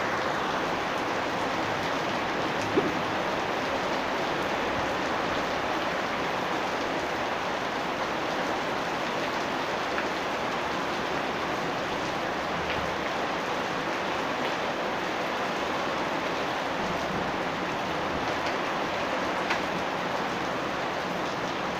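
Steady rain falling, an even hiss with a few louder single drops ticking close by, the sharpest about three seconds in.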